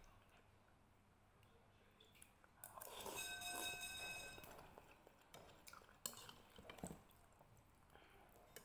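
Quiet eating sounds. About three seconds in, a metal spoon clinks on a ceramic bowl with a short ring while broth is slurped from the spoon. Later come a few small clicks and chewing sounds.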